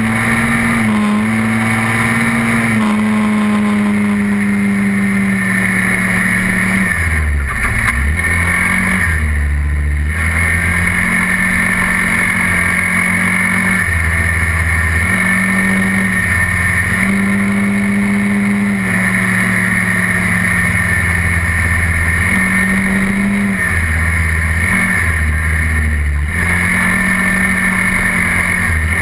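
SYM Quadlander 300 ATV's single-cylinder engine running while riding, its pitch and load shifting up and down every few seconds as the throttle is opened and eased. A steady hiss runs under it.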